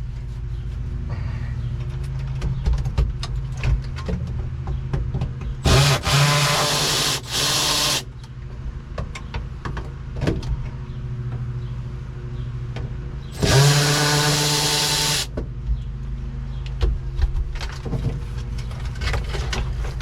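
A handheld power tool runs in two bursts of about two seconds each, with scattered clicks and knocks of parts being handled between them, over a steady low hum.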